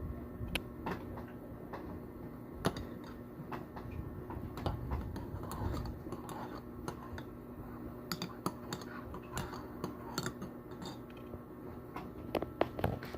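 Irregular light clicks and taps of kitchen utensils being handled, with a few louder ones close together near the end, over a faint steady hum.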